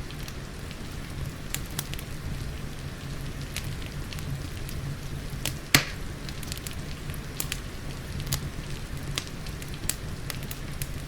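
Wood fire crackling with frequent small pops and one loud pop a little over halfway through, over a steady hiss of rain and a low rumble.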